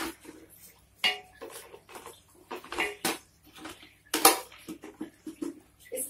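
Handling noise from a plastic cola bottle and plastic tubing being worked into place: irregular knocks, taps and plastic crinkles, the loudest about four seconds in.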